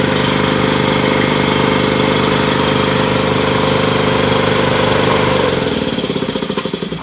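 Ingersoll Rand Type 30 two-stage air compressor's 7.5 hp electric motor and pump running steadily, now starting and running on its replacement motor start capacitors. Near the end the sound dips and turns uneven and pulsing.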